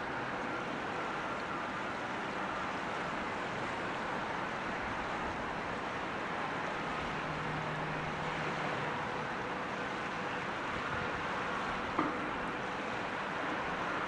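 Steady rushing outdoor background noise with faint steady hums, and a single sharp click about twelve seconds in.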